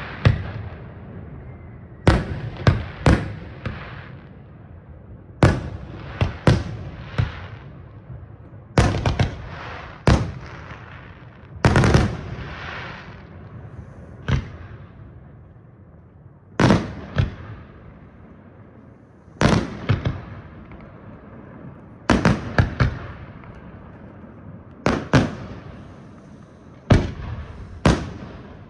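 Aerial firework shells bursting with sharp bangs, coming in clusters of two to four every few seconds, each followed by a lingering echo.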